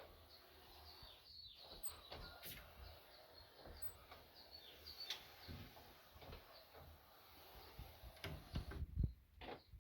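Faint bird chirping, short high chirps scattered throughout, with occasional clicks and a few low knocks near the end.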